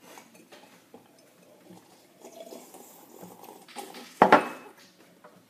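Drinking mugs being handled: a few faint clinks, then one sharp clunk of a mug against a hard surface about four seconds in.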